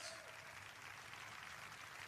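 Faint steady hiss of room tone, with the echo of a man's voice dying away just at the start.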